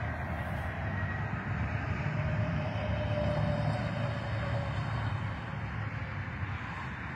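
Road traffic passing on a highway: a steady rush of tyres and engines that swells to a heavier low rumble as a semi-truck goes by, about two to five seconds in.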